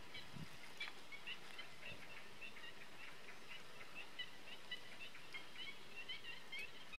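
Small birds chirping: a long run of short, high chirps that starts about a second in, over a faint steady hiss of open-air background noise.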